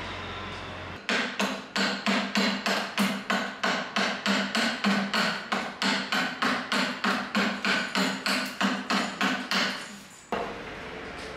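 A hatchet knocking repeatedly on a wooden spear shaft, about three sharp blows a second, each with a brief low ring, to seat a hunting knife on the shaft's end. The blows start about a second in and stop shortly before the end.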